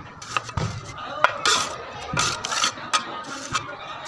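Steel brick trowel working mortar: several sharp clinks and taps with short scraping strokes, as mortar is scraped along the brick course and scooped from a steel mortar pan.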